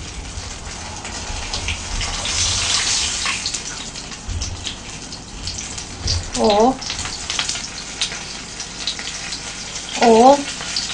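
Giant mozzarella cheese sticks sizzling steadily in hot frying oil in a pan, with light crackling. The sticks are fried through and ready to be taken out.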